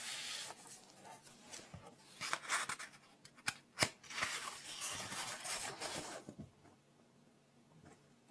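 Close-miked paper rustling and scratching in several bursts, with two sharp clicks about three and a half seconds in, then near quiet for the last two seconds.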